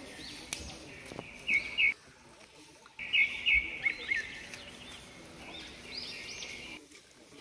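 Forest birds calling, a busy run of quick, high, arching chirps, with loud double chirps about a second and a half in and a louder burst around three seconds in. The sound drops out abruptly for about a second after the first loud chirps.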